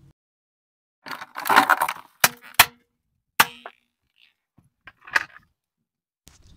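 A car tyre pressing down on a plastic toy baby bathtub with a doll inside. There is a crunching squeeze about a second in, then three sharp plastic cracks, one after another, and a smaller crunch near the end.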